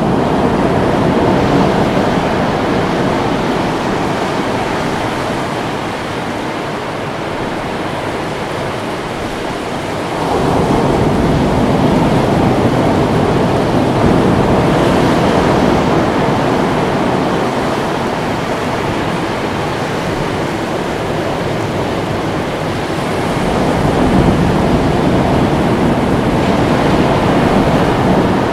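Ocean surf: a continuous rush of waves breaking and washing over a rocky reef, with the sound swelling about a third of the way in and again near the end.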